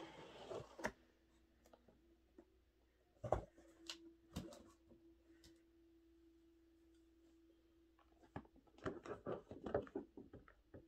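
Cardboard boxes being handled: a few separate sharp knocks and taps, then a quick cluster of scraping and rustling near the end, over a faint steady hum.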